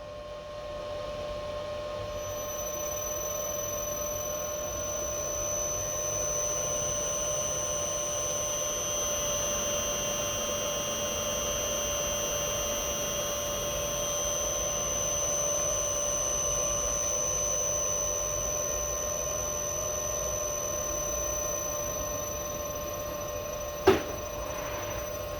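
LS iG5A SV055iG5A-4 variable-frequency inverter running on test, giving a steady electrical whine made of several fixed pitches, with a higher tone joining about two seconds in. One sharp click comes near the end.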